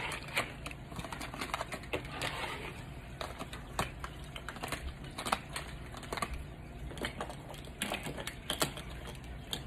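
Small metal makeup tins and their packaging being handled and put back in place: light, irregular clicks and taps.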